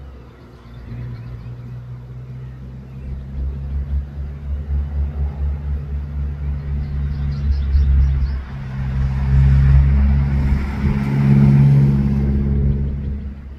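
A motor vehicle's engine running close by, a low steady hum that grows louder and drops off suddenly near the end.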